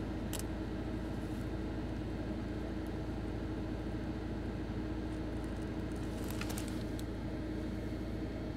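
Steady low hum inside a car, with a constant mid-low tone, and a few faint clicks about six and a half seconds in.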